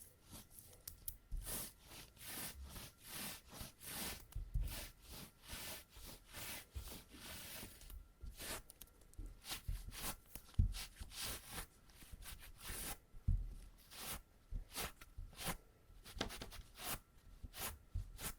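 Sticky adhesive tape being pressed onto trouser fabric and peeled off again to lift embedded cat hair: repeated short crackling peels, about one or two a second, with occasional soft thumps.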